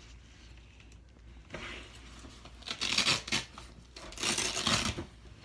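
Rustling, scraping handling noise in three bursts, the last two louder, as the emergency tool kit and its case are handled.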